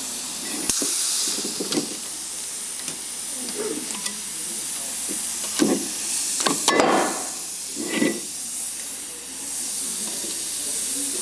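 Air-operated valve spring compressor on a Rolls-Royce Silver Cloud III cylinder head: short rushes of compressed-air hiss as it cycles, about a second in and again near the middle, with sharp metal clicks and clinks of valve springs and keepers coming off.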